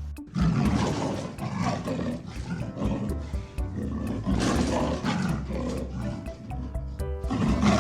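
A large animal's rough, noisy calls in uneven pulses, over background music with steady low tones.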